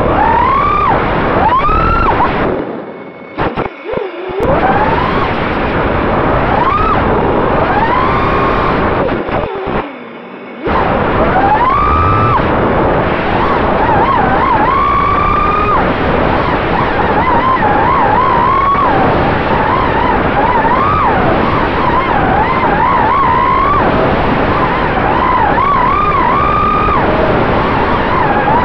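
Racing quadcopter's brushless motors, Cobra CP 2207 2600KV spinning HQ 5045 three-blade props, heard from on board over a rush of wind: a whine that rises and falls with each throttle change. It drops away briefly twice, about three seconds in and about ten seconds in, when the throttle is cut. From about eleven seconds on it wavers quickly up and down with fast throttle corrections through the gates.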